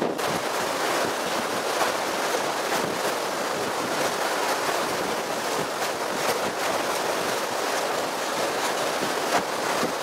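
Strong monsoon wind blowing over the microphone above a choppy sea, with waves splashing: a steady, even rushing noise with small gusty swells.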